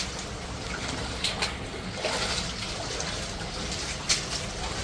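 Running, trickling water, with a few sharp clicks or knocks, the loudest near the end.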